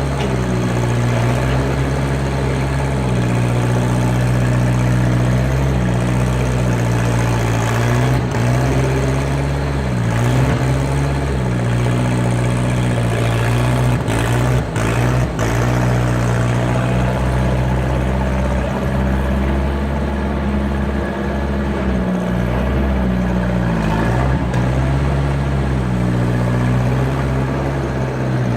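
Skid steer engine running steadily, its pitch shifting a little now and then as it works, with a few brief knocks around the middle.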